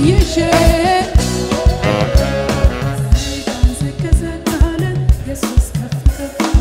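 Live band playing upbeat Ethiopian Protestant worship music (mezmur). The drum kit is the loudest part, with snare and bass drum hits keeping a steady beat.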